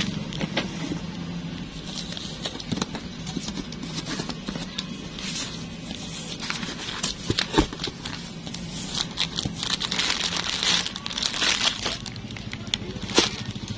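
Cardboard box being handled and pulled open, with the plastic sachets packed inside rustling and crinkling in irregular crackles and a couple of sharp snaps, over a steady low hum.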